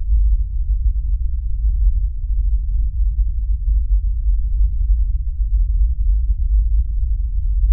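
A loud, steady deep rumble with nothing higher above it and no sharp hits.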